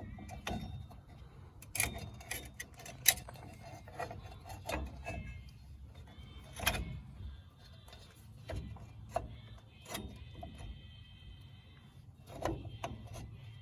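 Irregular metallic clicks and clinks of hand tools and brake hardware being worked on a truck's rear drum brake assembly, a dozen or so knocks, some ringing briefly, over a low steady hum.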